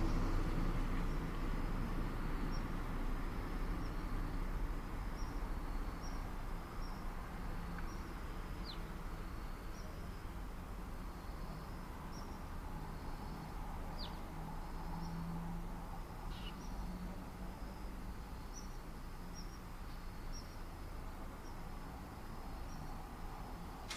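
Suburban outdoor ambience: a steady low rumble of distant traffic that eases off from the start. Over it, a short high chirp repeats about once a second, and a few brief downward-sliding bird calls come near the middle.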